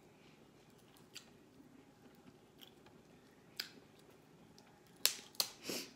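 Crab leg shell cracking and snapping as the meat is picked out by hand: a few scattered sharp clicks, then three loud cracks in quick succession near the end.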